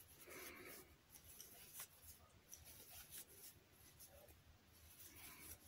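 Near silence, with faint scratching and a few light clicks of a crochet hook working yarn in single crochet.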